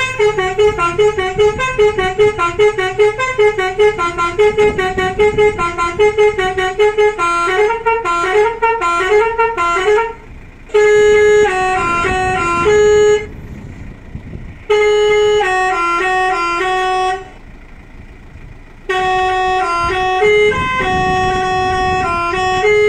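Electric 'klakson basuri' musical horn of about 500 watts on a Mitsubishi L300, playing a tune: a fast run of short notes for about ten seconds, then longer held notes in phrases separated by short pauses.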